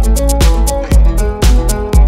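Background music with a steady beat: drum hits about twice a second over a bass line and melody.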